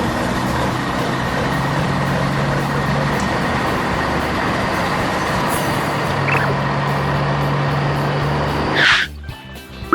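Heavy vehicle engine running steadily for about nine seconds, ending with a short sharp hiss like an air brake, after which the engine sound drops away.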